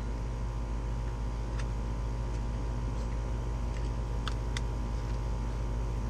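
A steady low hum, with a few faint light clicks as the bit is swapped in a cordless drill.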